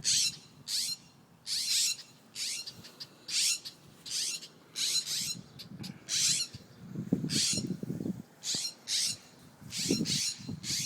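Parent songbirds giving repeated sharp alarm calls, each a brief downward-sweeping chip, about one and a half a second, in agitation over their fledgling taken by a dog.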